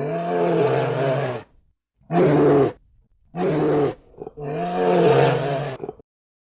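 A large animal giving four deep calls in a row, separated by short pauses; the first and last calls are the longest.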